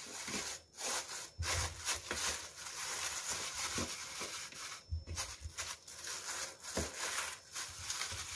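Thin plastic bag crinkling and rustling in irregular bursts as hands press and smooth it down over dough in a plastic bowl.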